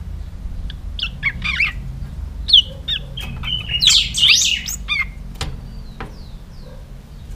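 Caged pica hueso songbird singing a run of quick chirps, trills and whistled notes, starting about a second in and ending around five seconds. A steady low rumble runs underneath.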